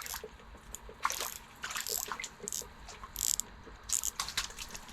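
Small ice-fishing reel being worked as a fish is fought and reeled up, making irregular light clicks and brief ratcheting rattles.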